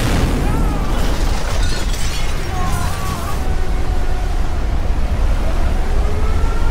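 Film sound effects of a sudden, loud explosion blast that carries on as a heavy, continuous low rumble. A few wavering tones sound faintly over the rumble.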